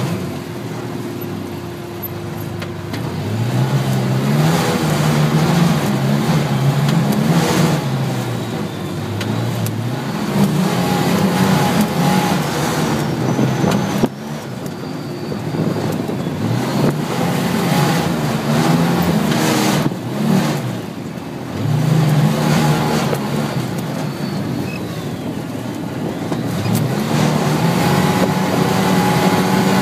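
Off-road vehicle's engine under way, revving up and dropping back again over and over, its pitch climbing in steps within each pull.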